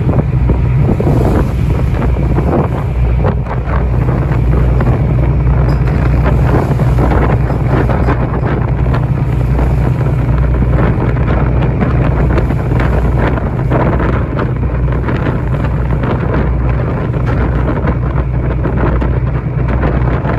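Wind buffeting the microphone aboard a boat at sea, in irregular gusts over a steady low rumble, with water rushing past.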